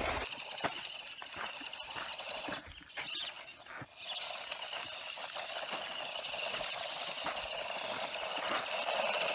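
Small RC rock crawler's electric motor and gearbox whining as it drives and climbs on a sand hill, the pitch wavering with throttle and a brief let-up about three seconds in. Light ticks and crunches from the tyres and grit run under the whine.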